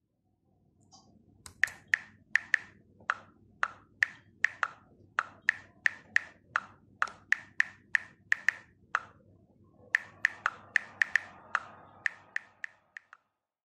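A run of sharp, ringing taps, about two a second, over a faint low hum. The taps pause briefly about nine seconds in, then come thicker until near the end.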